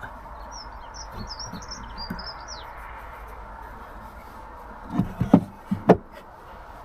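A small bird twittering: a quick run of short, high chirps lasting about two seconds. About five seconds in come a few sharp knocks.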